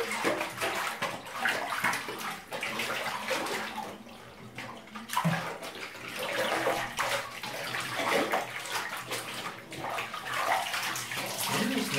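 Bathtub water sloshing and splashing as hands swish and knead a mesh bag of Lego bricks in soapy water. There is a quieter lull about four seconds in.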